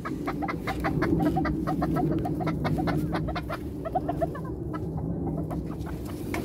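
Backyard chickens clucking, a fast run of short clucks several a second over a steady low hum; the clucking thins out briefly past the middle, then picks up again.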